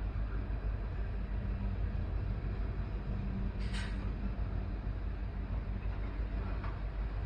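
Canadian National manifest freight train with diesel locomotives, giving a steady low drone and rumble. A short hiss comes about three and a half seconds in.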